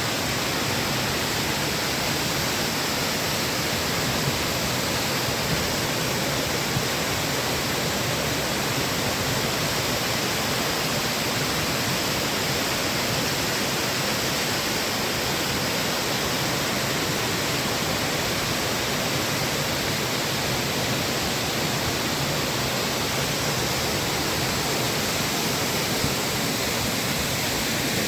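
Girlevik Waterfall's falling water: a steady, even rush that does not let up.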